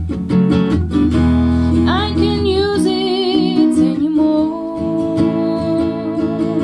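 Acoustic guitar strummed in chords, joined about two seconds in by a voice singing long held notes with vibrato.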